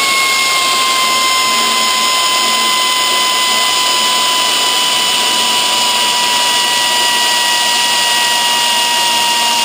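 Handheld power drill/driver running continuously with a steady high whine that sags slightly in pitch, spinning out the screws that hold the plate under the engine. It cuts off abruptly near the end.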